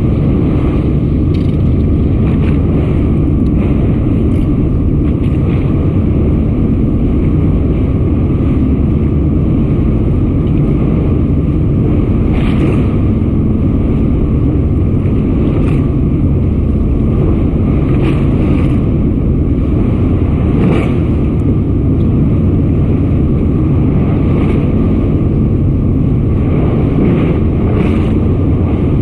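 Steady low rumble of wind buffeting an action camera's microphone, with a few faint clicks scattered through it.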